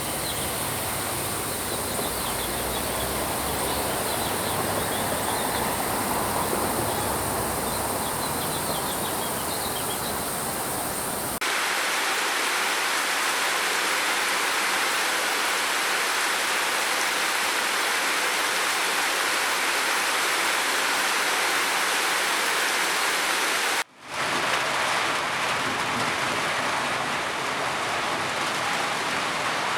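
Steady rain, with a cut about a third of the way in to a brighter, hissier rain recording and a brief dropout about two-thirds through. Faint high chirping runs under the first part.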